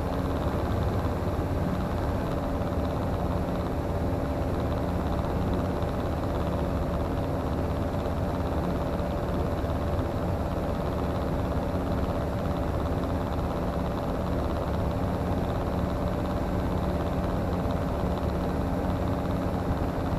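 Comco Ikarus C42C microlight's engine and propeller droning steadily in cruise flight, at an even pitch throughout.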